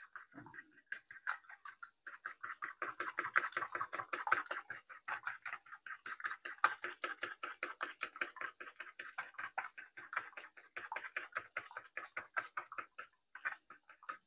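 A fork beating eggs and milk in a paper bowl: rapid, even clicking taps about five or six times a second, with a short pause near the end.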